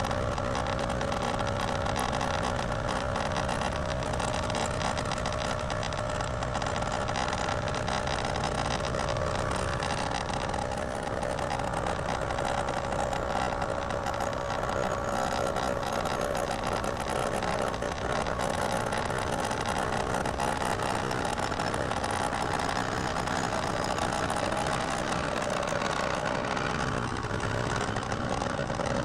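Precision Matthews PM-25MV benchtop milling machine running steadily while a fly cutter takes a facing pass across an aluminium part. The cut is peeling the metal rather than cutting it cleanly, which the machinist puts down to galling or a tool bit that needs sharpening.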